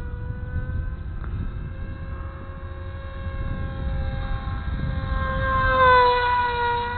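Electric motor and propeller of an RC Bixler model plane in flight: a steady, rough-sounding whine that swells louder and dips slightly in pitch about six seconds in. The owner puts the roughness down to the poor-quality stock propeller.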